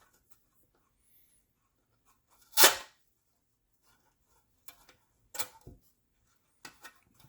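A short, loud rasp of masking tape being pulled off the roll, about two and a half seconds in, followed by a few faint handling clicks and rustles of tape and parts.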